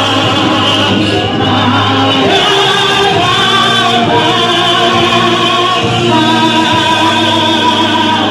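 A vocal group singing a gospel praise song together in harmony, holding long notes over a steady low accompaniment.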